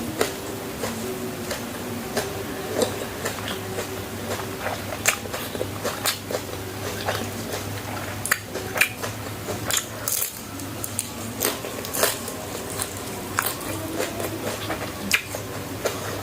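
Close-miked chewing of crunchy fried food: irregular sharp crunches and mouth clicks, with now and then a clink of utensils, over a steady low hum.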